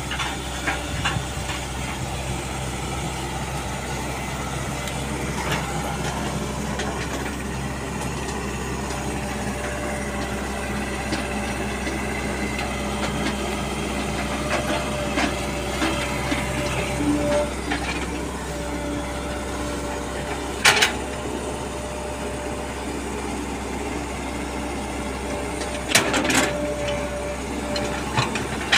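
Caterpillar E120B hydraulic excavator's diesel engine running steadily as it digs into the soil, with a higher tone coming and going over it. Two sharp clanks stand out, one about two-thirds of the way through and another near the end.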